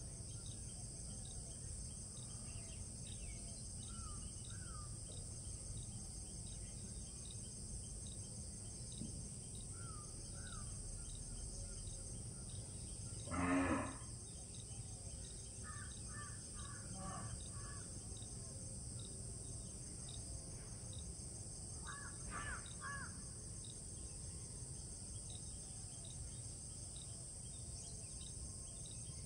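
Outdoor ambience of a steady high insect buzz, with scattered short bird chirps. One louder bird call comes about halfway through, and a smaller burst of calls follows about two-thirds of the way in.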